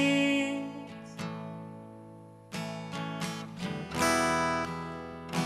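Acoustic guitar playing slow chords, each strummed once and left to ring out before the next.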